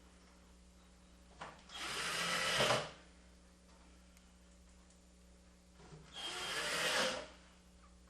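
Power driver driving two 1/2-inch flathead screws into the wooden breadbox panel, about a second each, getting louder and stopping suddenly as each screw seats. A short click comes just before each one.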